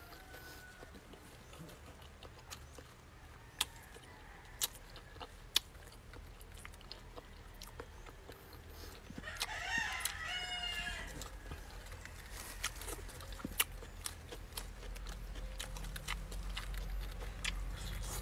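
A rooster crows once, about halfway through, a single call of about two seconds. Around it come small clicks and smacks of someone eating with their fingers.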